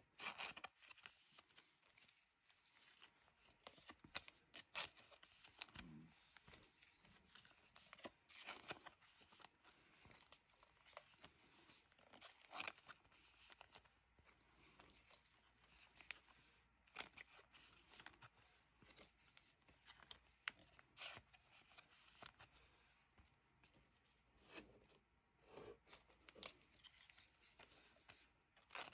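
Faint, irregular crinkling and rustling of thin clear plastic card sleeves as Pokémon trading cards are peeled off a stack and slid into them one at a time, with small sharp crackles scattered throughout.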